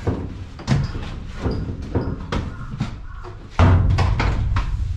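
Repeated metal knocks and clunks, echoing in a steel shipping container, as a truck-cab section is manhandled and knocked against the container and other parts. A loud low rumble sets in suddenly about three and a half seconds in.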